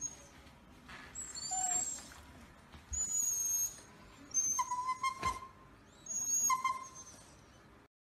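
Shiba Inu dogs whining in about four short, high-pitched whines, each under a second, with a sharp knock about five seconds in.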